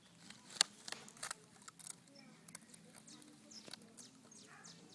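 An animal gnawing and chewing on wood: irregular crunching and cracking clicks, the loudest about half a second in and a quick cluster just after a second.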